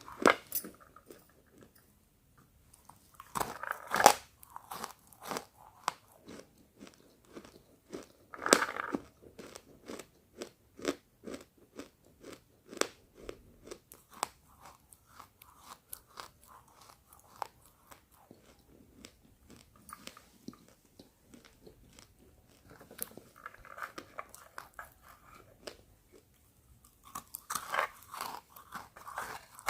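Roasted pink chalk being bitten and chewed close to the microphone. Loud crunching bites come just after the start, about 4 s in, about 8 s in and again near the end, with a steady run of smaller crunchy chewing clicks between them.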